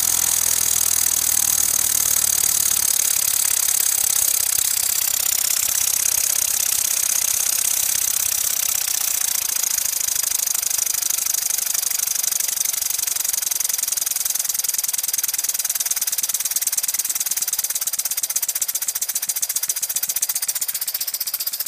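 Small oscillating-cylinder (wobbler) model steam engine running flat out on compressed air: a fast, steady chatter of exhaust puffs over a loud hiss of escaping air.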